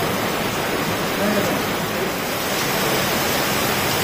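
Rain pouring down steadily, an even loud hiss of falling water, with faint voices under it.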